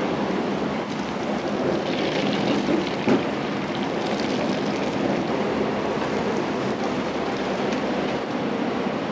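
Hot oil sizzling steadily as food deep-fries, with a single knock about three seconds in.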